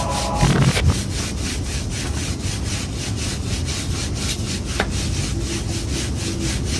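Wet cloth rag being scrubbed by hand with a brush against a tiled floor, in rapid, even back-and-forth strokes.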